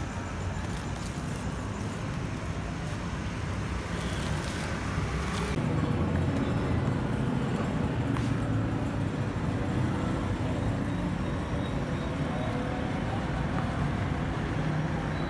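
Steady low rumble of street traffic noise, getting a little louder about five seconds in.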